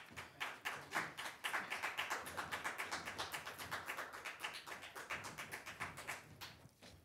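A small audience applauding, individual claps audible in a quick irregular patter that thins out near the end.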